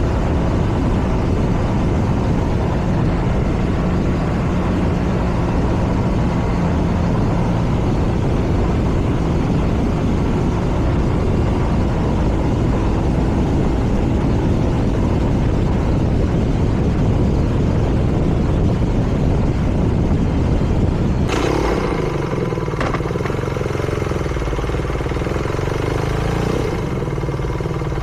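MY22 BMW R nineT's air/oil-cooled boxer twin running while riding, mixed with steady wind and road noise. About three-quarters of the way through, the sound changes suddenly to a clearer, steadier engine note at a slightly lower level.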